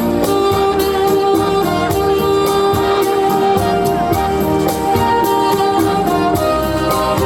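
Live band music with a steady beat and a held melody line.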